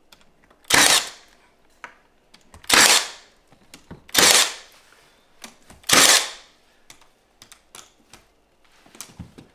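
Four shots of a trim nail gun driving nails into new window trim, coming at uneven intervals, with faint clicks and handling between them.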